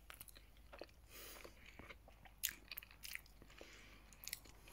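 Faint close-up chewing of a mouthful of mushroom fajita, with small irregular clicks of the mouth and teeth.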